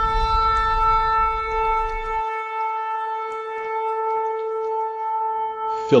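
Shofar blowing one long, steady note that holds a single pitch and cuts off just before the end. A low rumble sounds beneath it for the first two seconds.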